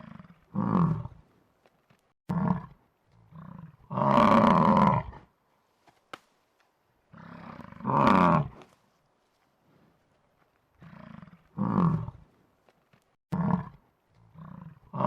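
An animal calling loudly over and over, in groups of a short call followed by a longer, louder call about a second long, repeating every three to four seconds.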